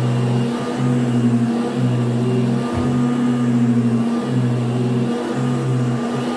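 1979 Goblin Housemaid GL888 upright vacuum cleaner running, its motor humming steadily as it is pushed back and forth over carpet.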